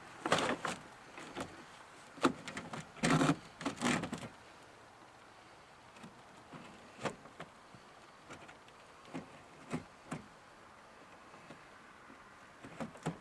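Handling noises as ropes are tied to fasten a homemade snow plow to a van bumper: a cluster of rustles and knocks in the first four seconds, then scattered brief clicks.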